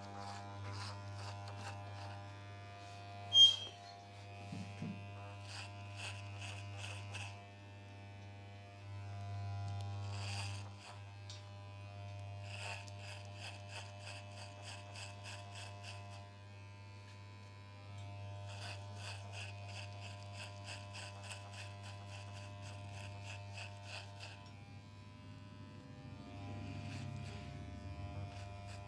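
Electric hair clipper running with a steady buzz, with runs of rapid, regular clicks over it and one sharp, loud click about three and a half seconds in.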